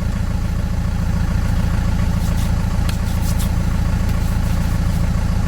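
Van engine idling steadily, left running to recharge its batteries.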